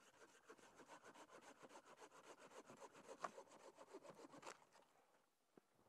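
Two folding pruning saws, a Corona and a Bahco Laplander, cutting through dead branches in quick, even strokes that stop about four and a half seconds in, followed by a couple of faint knocks.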